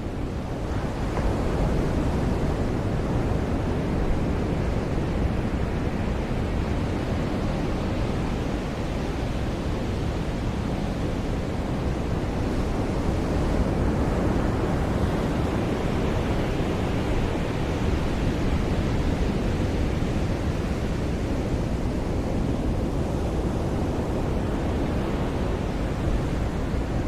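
Ocean surf washing onto a beach: a continuous rush of breaking waves that swells and eases gently.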